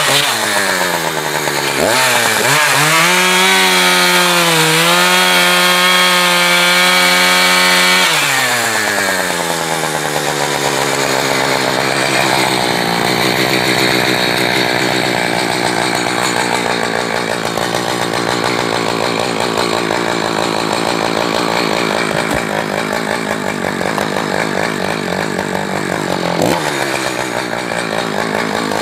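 Two-stroke Echo chainsaw running at full throttle through firewood, its pitch dipping and recovering as the chain bogs in the cut. About eight seconds in, the throttle comes off and the engine winds down, then runs on at lower speed with a rougher sound.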